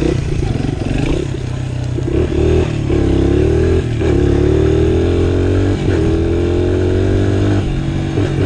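1999 Honda XR100's small single-cylinder four-stroke engine running hard under a rider, its pitch climbing and falling several times as the throttle opens and closes.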